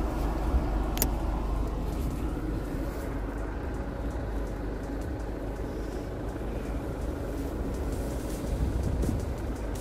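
Force Gurkha 4x4's diesel engine running steadily, a low rumble, with a single brief click about a second in.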